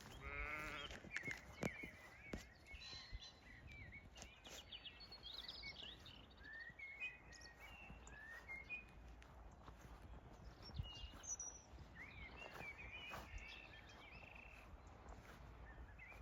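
Faint evening birdsong: many short chirps and whistled calls, with a short wavering call right at the start. Soft footsteps and low rumble underneath.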